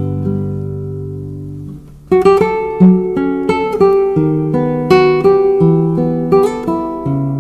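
Acoustic guitar music: a chord rings and fades for about two seconds, then the guitar picks up again with a run of plucked single notes, several a second.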